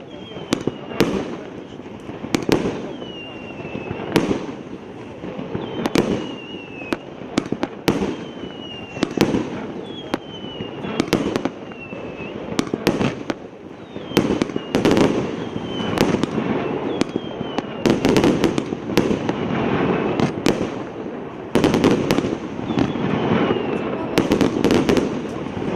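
A 19-shot, 1.25-inch consumer fireworks cake firing in succession: a string of sharp bangs, several shots followed by a short falling whistle. A rushing, crackling noise fills the gaps and thickens over the second half, where the shots come faster.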